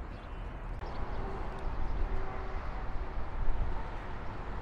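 Outdoor parking-lot ambience: a steady low rumble of traffic, with a faint steady hum coming in about a second in.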